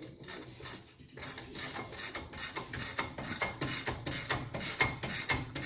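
Hand ratchet wrench clicking in a steady rhythm, about four clicks a second, as the brake caliper bolts are run back in; the clicking starts about a second in.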